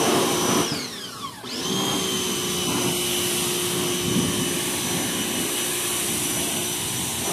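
Electric pressure washer running with a steady motor whine. About a second in the motor winds down, then spins back up about half a second later, as an electric pressure washer does when its trigger is released and squeezed again.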